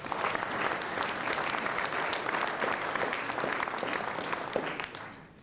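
Audience applauding, a dense patter of many hands clapping that starts straight away and dies away about five seconds in.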